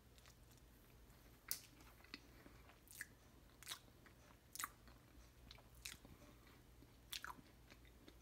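Faint chewing of a bite of buko pie (young coconut custard pie): a string of short, sharp mouth clicks, roughly one a second.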